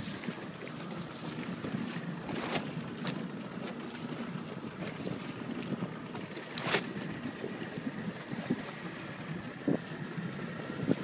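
Wind buffeting the microphone over choppy water, with water splashing around a small sailing dinghy and a few sharper splashes or knocks, the loudest about seven seconds in.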